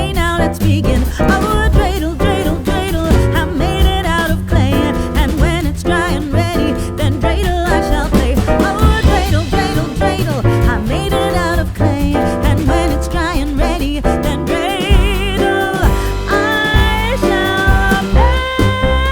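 Background music with a steady bass line and a wavering melody line.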